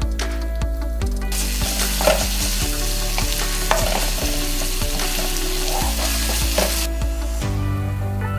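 Chopped garlic, chillies and curry leaves sizzling in hot oil in a nonstick wok, stirred with a slotted wooden spatula. The sizzle starts about a second in and stops shortly before the end, over background music.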